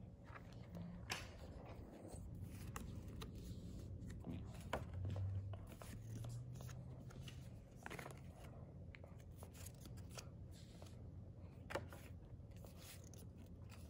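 Pokémon trading cards handled one at a time: quiet slides and light clicks as each card is pulled from the front of the stack and tucked behind, with a brief low sound about five seconds in.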